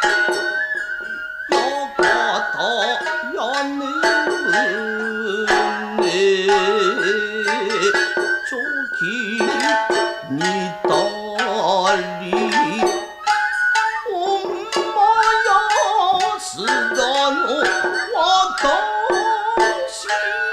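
Nagauta music in an instrumental passage: shamisen plucking in quick, sharp notes, with a high held melody line bending over it.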